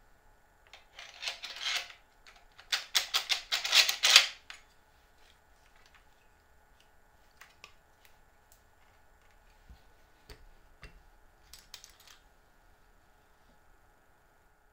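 Handling noise as a compact router is set onto a plywood-and-aluminium jig base: a few seconds of rattling, scraping clatter, then a few faint clicks as the jig is adjusted. The router motor is not running.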